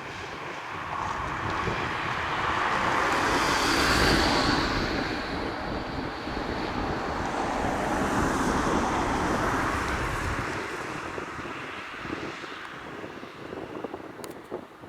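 Boeing 767-300ER jet airliner on landing approach passing the spotter: the jet engine noise builds to its loudest about four seconds in, with a high whine, holds for several seconds, then fades away. Wind buffets the microphone near the end.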